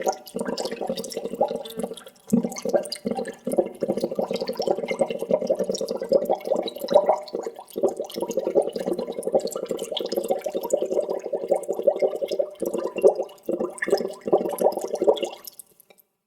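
Water bubbling steadily, a dense stream of small bubbles gurgling and popping. It dips briefly about two seconds in and stops shortly before the end.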